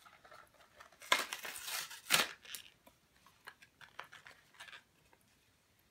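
Plastic toy packaging crinkling and tearing as a small figure is pulled free: a burst of crinkling about a second in, ending in a sharp snap, then light clicks and rustles.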